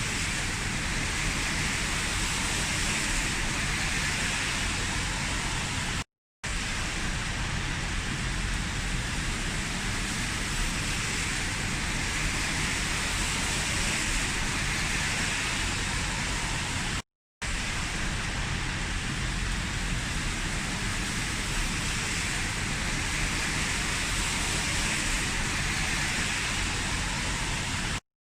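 Steady heavy rain, an even hiss that cuts out to silence for a split second twice.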